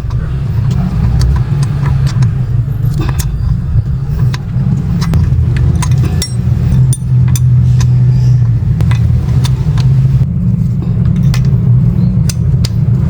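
Scattered light metallic clinks and taps, as tools and fittings are worked on during a water-pump replacement, over a steady low rumble.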